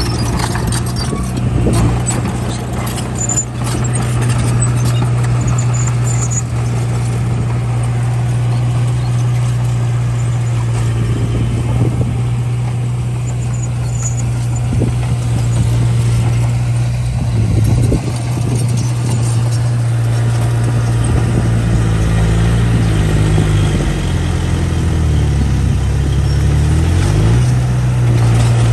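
Small bulldozer's diesel engine running steadily under load, its note dipping and climbing back in steps near the end.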